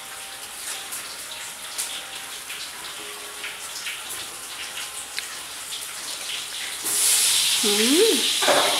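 Banana leaves rustling and crackling as they are handled in a woven bamboo basket, soft scattered ticks and crinkles. About seven seconds in a loud steady hiss sets in, with a short wavering tone over it near the end.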